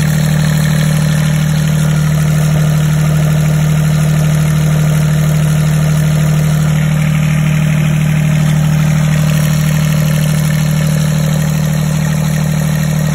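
Volvo Penta MD2020D three-cylinder marine diesel idling steadily, heard up close in its open engine compartment.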